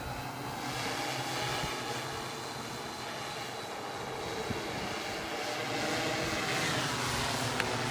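Electric multirotor (MikroKopter OktoKopter XL with eight motors and propellers) hovering: a steady whir of spinning props, with the pitch gliding near the end as the motor speeds change.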